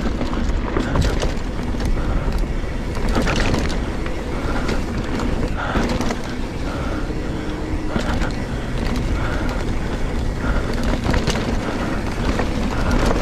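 Full-suspension mountain bike ridden along a dirt singletrack: knobby tyres rolling over dirt, with the chain and frame rattling over bumps and a steady low wind rumble on the camera microphone.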